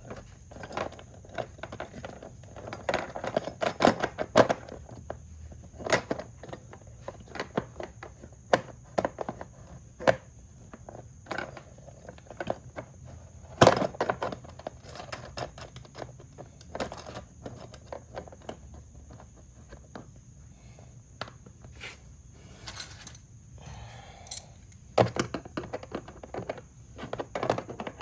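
Metal hardware clinking and tapping as a nut, lock washer and washer are fitted onto a light-bar mounting bolt and tightened with hand tools. The clicks come irregularly, with a few louder knocks, the loudest about 14 seconds in.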